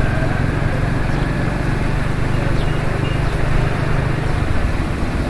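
Motorcycle engine running at low riding speed, a steady low hum over wind and road noise; the engine note eases off about four and a half seconds in.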